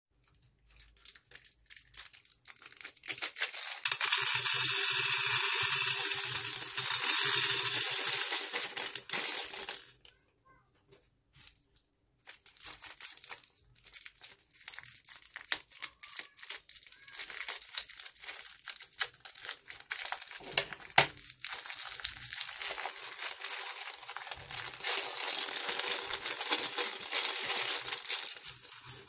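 Plastic piping bags crinkling as they are handled and cut open with scissors, with plastic pearl beads and sequins spilling and rattling into a glass baking dish. The crinkling is loudest for several seconds early on, then goes on softer with many small clicks.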